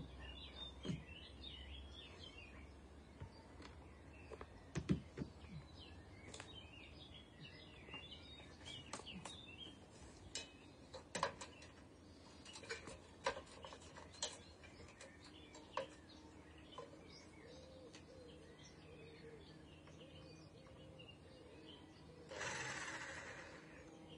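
Quiet garden birdsong with light scattered knocks and clicks from timber and tools being handled. Near the end there is a hiss or rustle about a second long.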